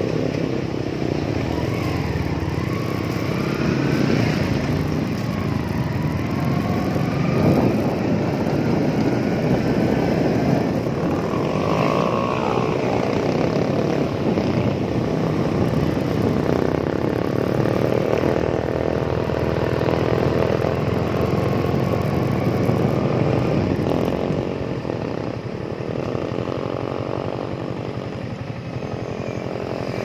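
Loud wind roaring over a camera hung on the rear licence-plate holder of a 2019 Yamaha R15 at speed, with the bike's single-cylinder engine rising and falling in pitch under it. The rush eases a little near the end.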